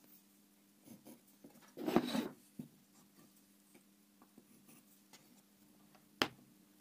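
Pencil lead scratching on wood as a mark is drawn against a small steel ruler: one short stroke about two seconds in, with faint light taps and ticks around it. Just after six seconds, a single sharp clack as a plastic case is set down on the bench.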